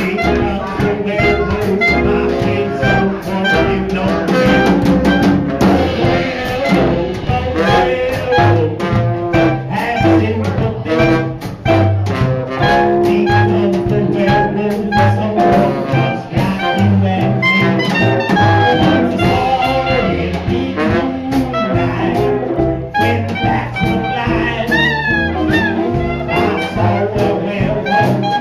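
Live swing jazz band playing, with saxophone and trumpet over a drum kit keeping a steady beat.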